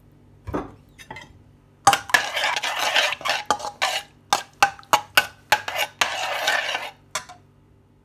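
Steel spoon stirring a thick sauce in a metal wok, scraping the pan and clinking against it over and over. A light knock comes first, then about five seconds of rapid scraping and clinking that stops suddenly.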